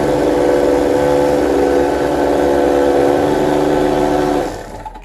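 Oster countertop blender motor running at a steady speed, its blade churning a pink fruit smoothie in the jug; it is switched off near the end and the sound dies away.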